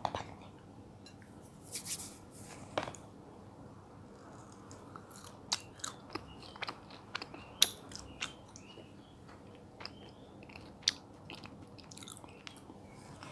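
Close-miked chewing and biting of soft, juicy fruit: wet mouth sounds with irregular sharp clicks and crackles, one click louder than the rest a little past halfway.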